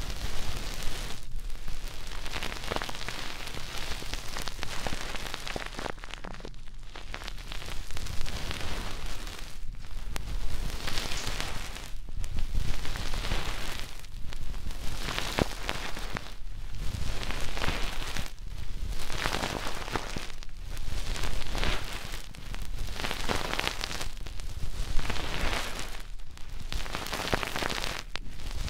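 Scratchy, crackling rubbing strokes against the ears of an ASMR binaural microphone. Each stroke lasts one to two seconds, with short breaks between them.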